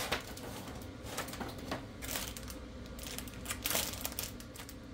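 Plastic handling noise: irregular short clicks and rustles as the photo printer's ink cassette is picked up and handled, with a longer crinkle about three and a half seconds in.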